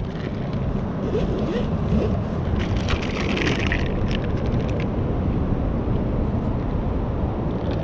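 Steady low rumble of wind buffeting the microphone, with a cluster of small clicks and a short rustle about three to four seconds in as a plastic screw cap is twisted off a drink bottle.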